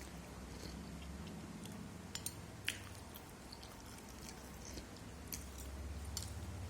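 Close-up eating sounds of someone chewing fish cake: soft wet mouth noises with scattered smacking clicks, the sharpest about two and a half seconds in, over a low steady hum.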